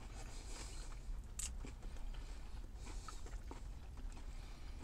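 A man chewing a bite of a sauce-covered chicken nugget close to the microphone: scattered soft wet mouth smacks and clicks, a sharper click about a second and a half in, over a low steady hum inside a car.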